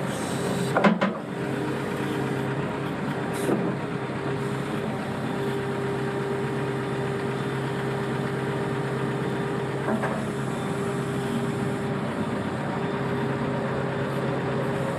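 Hyundai HX160 excavator's diesel engine running steadily. A sharp metallic knock comes about a second in, and fainter knocks follow at about three and a half and ten seconds.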